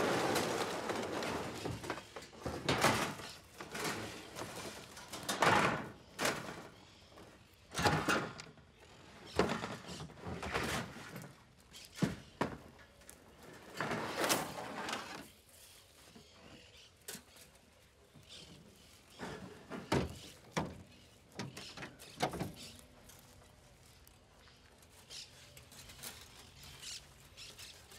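A series of thuds, rustles and knocks as gear is set down and a coil of wire is handled, dense for about the first fifteen seconds and then quieter and sparser.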